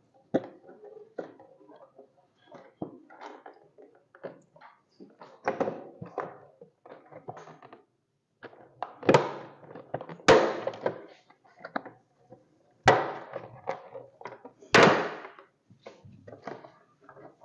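Plastic front headlight cover of a Honda Biz 110i motorcycle being worked loose by hand: plastic rubbing and creaking, with several sharp snaps and knocks as its locking clips release, the loudest in the second half.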